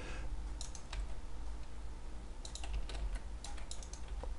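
Computer keyboard keys and mouse buttons clicking in short clusters with pauses between them, over a low steady hum.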